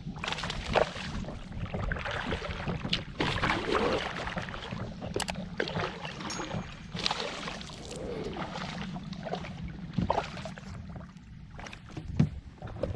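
Kayak paddle strokes dipping and splashing in the water, an uneven run of strokes about a second apart.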